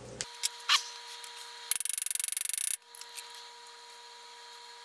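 Steel calipers sliding along their beam: a brief rasp lasting about a second, with a few light metallic clicks of the tool being handled before and after.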